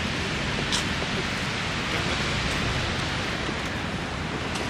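Steady rushing noise of wind buffeting the microphone over the wash of ocean surf.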